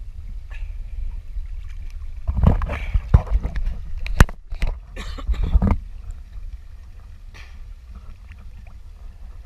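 Steady low rumble of a ship under way or at its machinery, with a burst of clattering and sharp knocks from about two to six seconds in.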